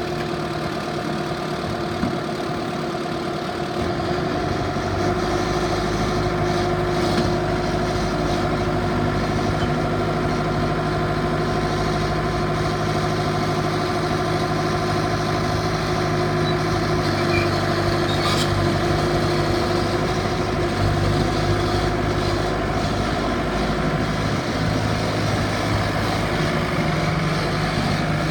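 Bobcat S770 skid steer's diesel engine running steadily, getting louder about four seconds in and then holding steady.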